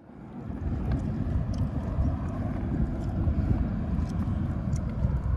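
Low, gusting rumble of wind buffeting the microphone as the camera is carried along, fading in over the first second. Faint footsteps on the concrete path come through now and then.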